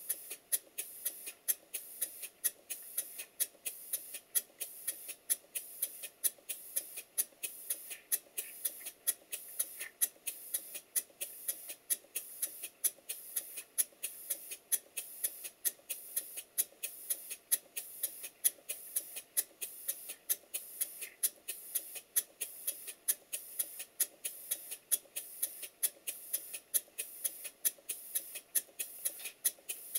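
Stuart Twin Victoria model twin-cylinder mill engine running on compressed air: a quick, steady, even rhythm of sharp hissing exhaust puffs. The beats are evenly spaced, the sign of valve timing that has been correctly set.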